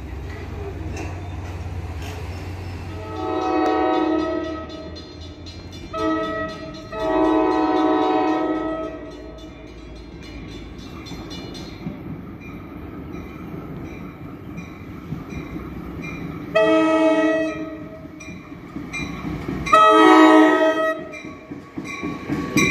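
NJ Transit commuter train's multi-chime air horn sounding a series of blasts as it approaches: a long one, a short one and another long one, then after a pause two more, the last the loudest. Near the end the train runs in with clattering rail noise.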